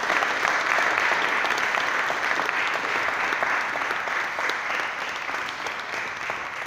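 Congregation applauding, loudest at the start and slowly tapering off.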